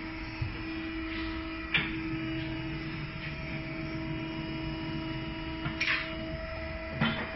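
Tire changer running: the turntable motor hums steadily, with a few sharp knocks as the truck tire is worked over the rim, one about two seconds in and two near the end. The hum shifts to a higher pitch near the end.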